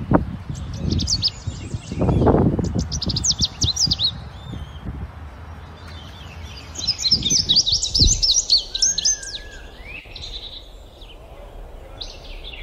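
Small birds chirping in quick twittering runs: one bout in the first few seconds, and a second, busier bout a little past the middle. A low rumble lies under the first part.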